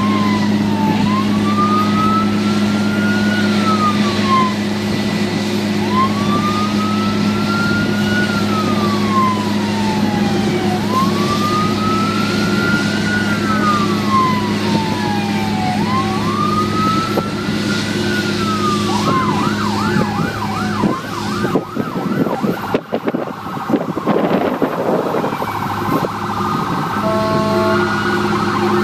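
Airport fire truck siren wailing, its pitch rising and falling slowly about every five seconds, then switching to a fast warble about two-thirds of the way through, with short tones near the end. A steady low engine hum runs underneath.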